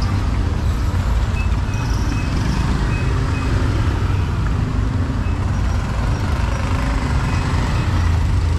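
Street traffic with a heavy motor vehicle's engine running close by, a steady low rumble. A run of short, high beeps sounds through the first half.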